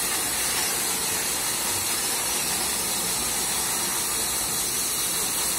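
Grain pouring through a metal chute into a sack, a steady hissing rush.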